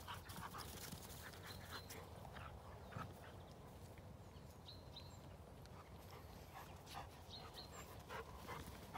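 Dogs at play, faintly heard: light panting and scattered soft taps and rustles, with a few brief high chirps.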